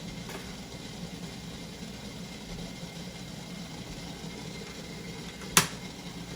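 Fritters frying in a pan of oil: a steady low hum with an even hiss. One sharp click sounds about five and a half seconds in.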